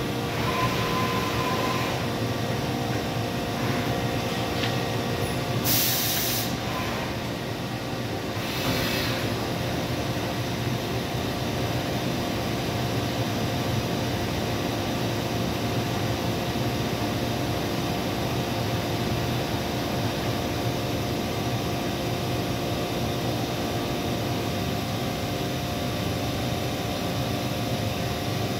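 Okuma Multus U4000 multitasking CNC lathe running, a steady machine hum with several held tones as its milling head moves into position. Two short hisses of air, about six and nine seconds in.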